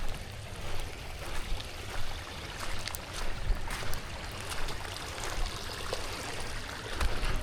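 Steady rush of flowing river water, with scattered light clicks and low thumps over it.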